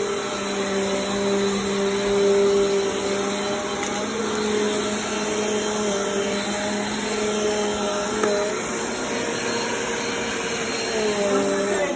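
Vacuum cleaner running steadily: a motor whine over a rush of air, its pitch shifting slightly now and then.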